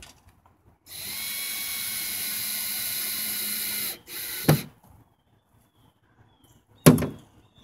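Cordless drill/driver running steadily for about three seconds as it drives a stainless steel screw through the cleat into the boat's wooden deck, then a brief second run. A sharp knock follows near the end.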